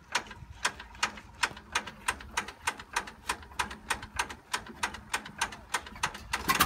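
A 1930s Fordson tractor's engine being hand-cranked on a cold start: sharp, evenly spaced clicks, about three to four a second, with the engine not yet running.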